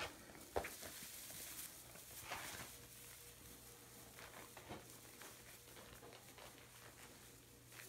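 Faint rustling and light pattering of a puppy's paws moving over loose straw bedding, with one sharper tap about half a second in.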